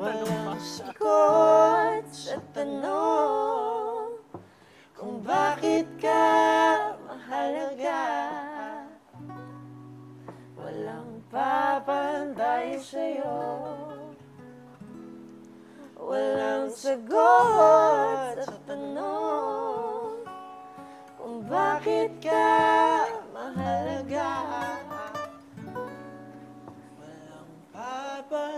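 A man singing a slow ballad in phrases with vibrato over guitar accompaniment.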